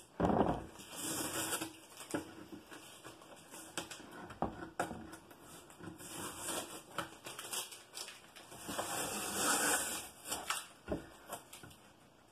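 Masking tape being peeled off the edges of a watercolour painting on paper and crumpled in the hand: irregular ripping, crackling and rustling with small clicks, loudest about half a second in and again near ten seconds.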